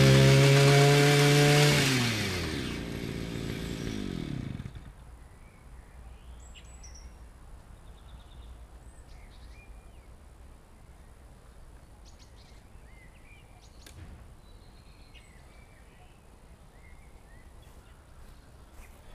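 Small petrol garden tiller engine running at high revs, then throttled back about two seconds in, winding down and stopping by about four and a half seconds. After that only faint outdoor background remains, with scattered small chirps and a single sharp click.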